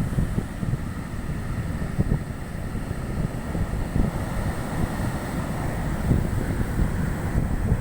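Big ocean waves breaking in heavy surf, a continuous rush and rumble, with wind buffeting the microphone.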